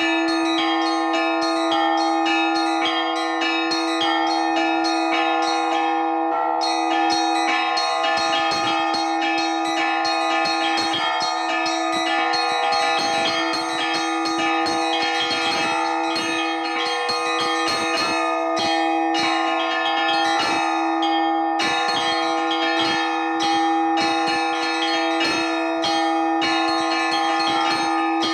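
Orthodox church bells rung in an improvised peal: small bells struck in a quick, dense rhythm over the steady ringing of larger bells, the small bells briefly pausing twice.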